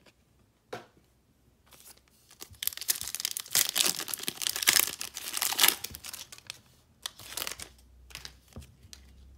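Foil wrapper of a Panini Mosaic football card pack being torn open and crinkled by hand: a dense run of crackling from about two and a half to six seconds in, then lighter, scattered crinkles.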